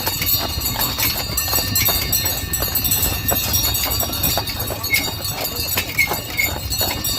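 Horse hooves clip-clopping in a steady, continuous run of beats as a horse pulls a sleigh.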